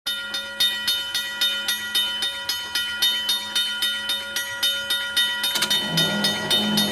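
A train passing, its wheels clicking rhythmically over the rail joints about four or five times a second over a steady whine. About five and a half seconds in, a lower rumble comes in more strongly.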